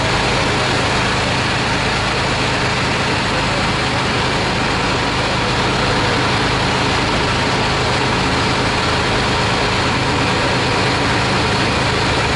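Fire truck's heavy diesel engine running steadily: a loud, even low drone with a constant hiss over it.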